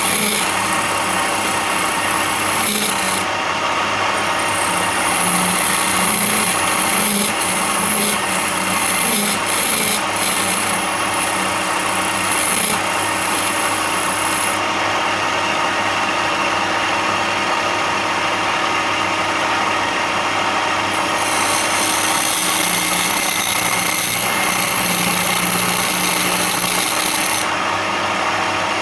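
A power tool sanding or grinding wood, its motor running steadily under a continuous abrasive rasp that rises and falls in the high end as the tool works the surface.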